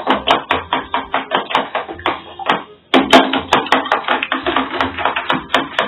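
Spoon beating raw eggs in a plastic bowl: rapid clattering taps of the spoon against the bowl, about six a second, with a brief pause just before the halfway point.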